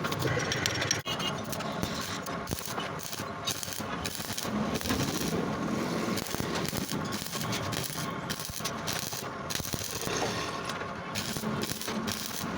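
Metalworking machinery running with a continuous clattering rattle, with one brief drop-out about a second in.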